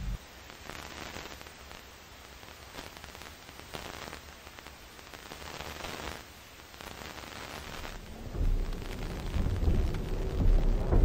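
A steady hiss of noise with faint crackles, and a loud low rumble that sets in about eight seconds in.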